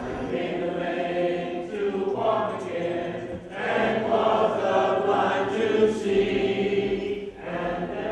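A choir singing long held notes, phrase by phrase, with short breaks between phrases.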